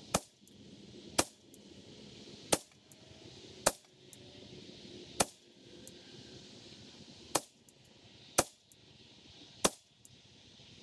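.22LR shots from a 10/22 rifle with a Kidd barrel, each a sharp crack. Five shots come about a second apart, then after a pause of about two seconds three more follow.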